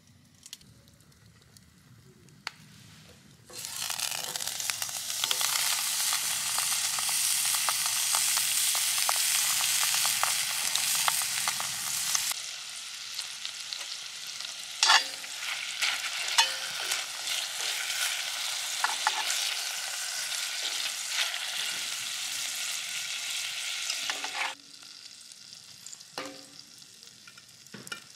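Food sizzling and crackling in a hot pan. It starts suddenly a few seconds in, eases a little about halfway with scattered pops, and stops suddenly near the end.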